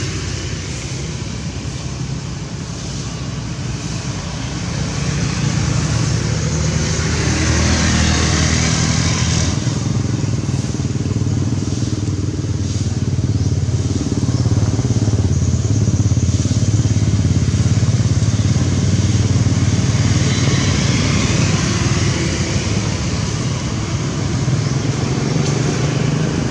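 Motor-vehicle engine noise, a steady low hum that grows louder about five seconds in.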